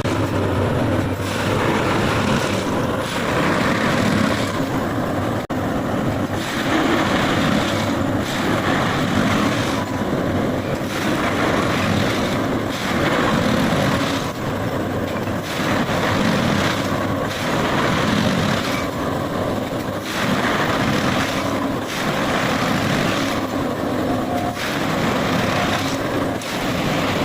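MFI railway track machine running at work, a steady heavy mechanical noise that swells and eases in a repeating cycle about every two seconds.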